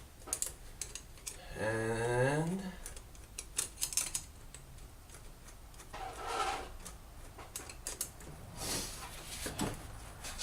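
Scattered light metallic clicks, ticks and short scraping rustles of a worm-drive hose clamp being loosened and the intake tube being worked off.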